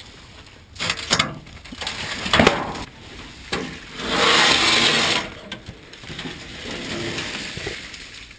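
A rusty 1/8-inch steel sheet being pulled out and dragged over concrete and dry leaves. Several sharp knocks and clanks come in the first few seconds, then a long loud scrape about four seconds in, and more scraping near the end.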